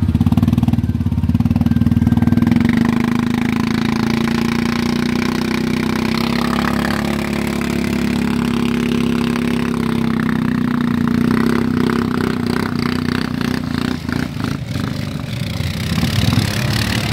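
Off-road vehicle engine running steadily under load, a low drone that is louder for the first couple of seconds and then holds even, as a stuck Honda Foreman ATV is towed out of deep mud on a strap.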